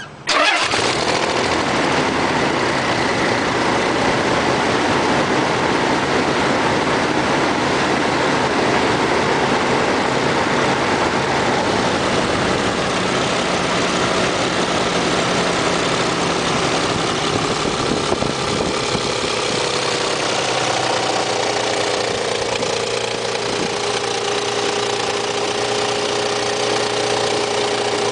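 Nissan 300ZX V6 engine starting right at the beginning and then idling, settling to a lower, steadier idle about twenty seconds in. The engine has a tapping knock that traces to a bad idler pulley.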